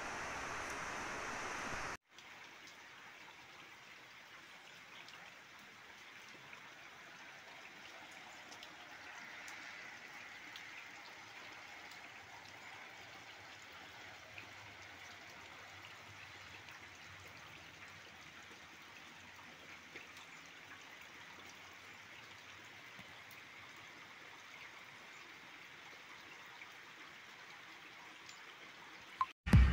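Steady rain falling, an even hiss with scattered drop ticks. A louder, fuller stretch of rain cuts off about two seconds in and gives way to a fainter, steady downpour.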